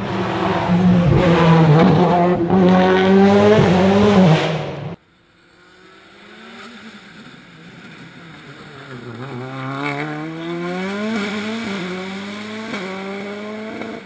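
Skoda Fabia WRC rally car's turbocharged four-cylinder engine at full throttle close by, its pitch swinging up and down with gear changes. It stops abruptly about five seconds in. The same kind of engine note then comes back quieter and grows louder, rising in pitch through several upshifts as the car climbs toward the listener.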